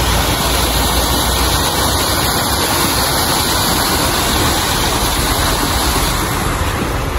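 Wind buffeting the microphone: a loud, steady rushing noise with an uneven low rumble.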